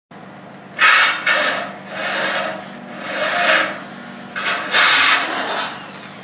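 Rasping strokes on metal: four or five separate scrapes, each under a second long and about a second apart, over a faint steady hum.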